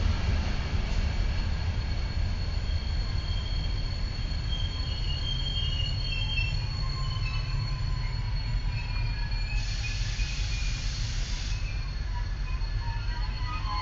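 Passenger express train of blue coaches rolling slowly into the station and braking, a heavy low rumble with thin high squeals from the wheels and brakes. A short hiss about ten seconds in.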